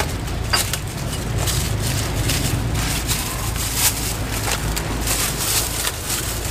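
Thin plastic bags crinkling and rustling as they are handled, in irregular crackles over a steady low rumble.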